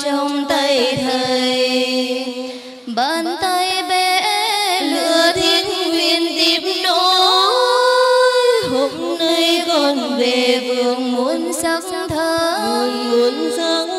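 Buddhist nuns singing a slow Vietnamese Plum Village meditation song (thiền ca) through microphones, with long held notes and a brief pause about three seconds in.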